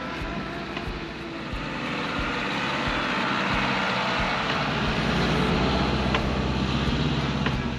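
Isuzu NPS 75-155 4x4 truck's diesel engine working hard as it tows an off-road caravan through soft sand, growing louder as it comes past, loudest a little after the middle, then dropping away near the end.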